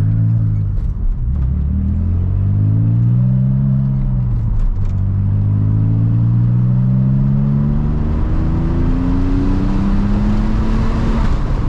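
Porsche 996 Turbo's twin-turbo flat-six accelerating hard on a boost test. Its pitch climbs, drops briefly at a gear change about four seconds in, then climbs slowly again through the next gear.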